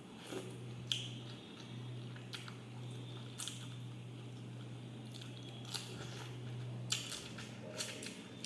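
Close-miked eating: chewing and squelchy mouth sounds with several short sharp clicks, over a steady low hum.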